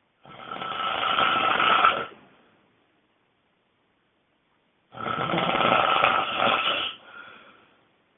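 A person snoring very loudly: two long, rasping snores about five seconds apart, each lasting about two seconds, the second trailing off more slowly.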